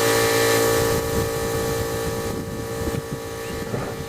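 A small power tool's motor whining steadily, cutting off about a second in, followed by scattered light knocks and scrapes of metal.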